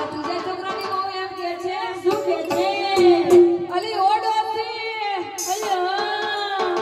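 Women singing a song together, a slow melody of long, gliding held notes.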